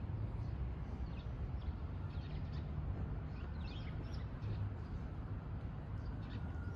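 Small birds chirping now and then, short high notes over a steady low outdoor rumble.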